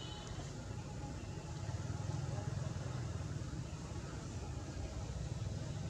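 Steady low rumble of outdoor background noise, of the kind left by distant engine traffic, with a brief high chirp right at the start.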